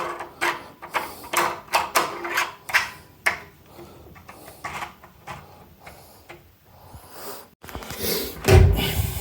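Irregular metallic clicks and knocks of door-handle hardware being screwed onto a door, with a loud rubbing or handling noise near the end.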